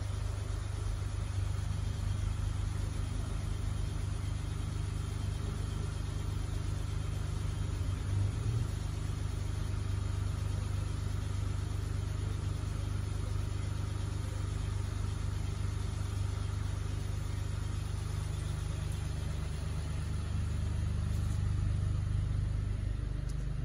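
A steady low mechanical rumble like an engine running, unbroken throughout and a little louder near the end.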